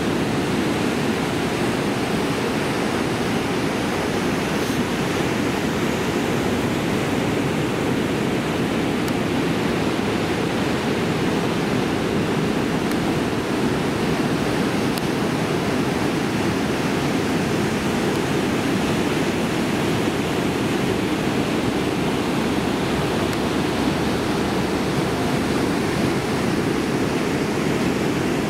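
Ocean surf: a steady, even rush of breaking waves that never lets up.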